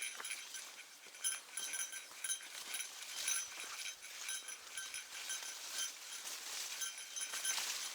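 A small bell, typical of a hiker's bear bell, jingling in irregular short rings with the walking steps.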